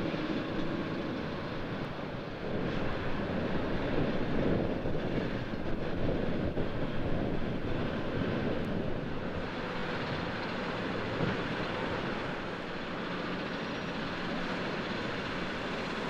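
Steady jet aircraft engine noise around the airport apron, an even rumble with no clear pitch that grows louder for a few seconds in the middle and then eases.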